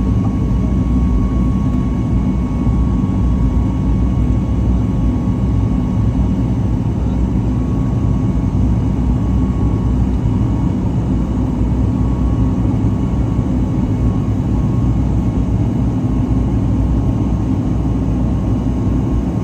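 Jet engine and airflow noise inside the cabin of a Boeing 737 MAX 8-200 with CFM LEAP-1B engines: a steady, loud low rumble with a constant whine running over it.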